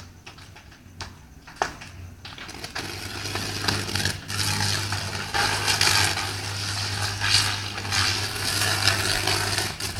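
Electrical short circuit arcing: a loud crackling buzz over a steady low mains hum, building up about three seconds in and cutting off suddenly just before the end. Scattered crackles and pops come before it.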